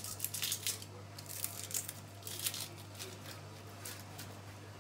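Dry, papery onion skin crackling and tearing as it is peeled off by hand, in several short bursts.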